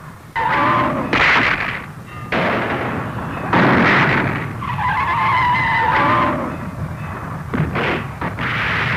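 Giant monster roar sound effects: several long, harsh cries, one after another, each lasting a second or more.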